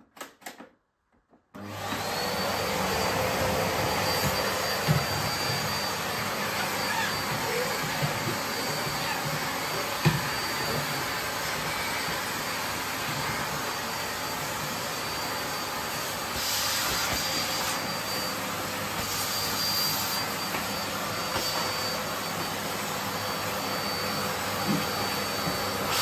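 Bosch BGS21X320 bagless cylinder vacuum cleaner switching on about a second and a half in and running steadily, its thin motor whine settling within a moment. The nozzle gives a couple of sharp knocks against the hard-shell suitcase, and the suction hiss rises briefly a few times as it moves over the surface.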